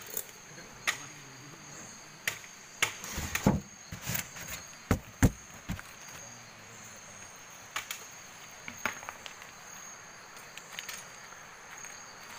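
Night insects, crickets, keep up a steady high-pitched trill, with a scatter of sharp knocks and clatters over it, bunched together in the first half and a few more later.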